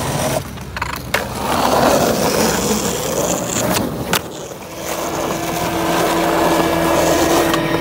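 Skateboard wheels rolling on a concrete road. About four seconds in comes a sharp pop of the tail, then a loud clack as the board lands a flip trick, and the wheels roll on.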